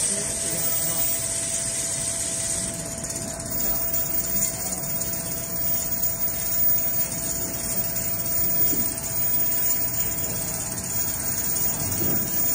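Richpeace 2200×1250 mm automatic furniture sewing machine running, its sewing head stitching steadily across a large framed panel. A steady tone runs under the machine noise and stops about ten seconds in.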